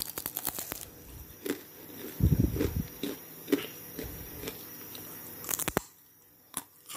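Someone bites into a crunchy fried breadfruit chip: a quick run of crisp crunches, then chewing with scattered crunches for several seconds.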